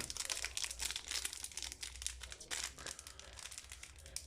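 Foil booster pack wrapper crinkling and rustling in the hands as the pack is handled and opened.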